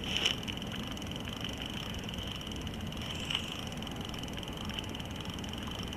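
Quiet, steady outdoor background noise with a couple of faint ticks, one about three seconds in.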